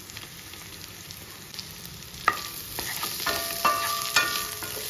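Food frying in oil in a stainless steel pan as baby corn pieces go in with the potatoes. From about two seconds in, a wooden spatula stirs and knocks against the steel pan several times, and the pan rings after each knock.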